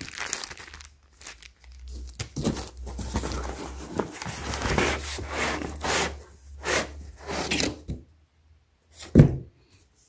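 Plastic packaging crinkling and rustling as a shrink-wrapped skateboard deck is slid out of a cardboard box. The rustling is uneven and stops about two seconds before the end, and a single short knock follows.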